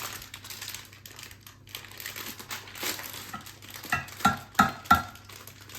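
Cookie-mix packet crinkling and rustling as it is opened, with a quick run of four sharp, louder crackles about four seconds in.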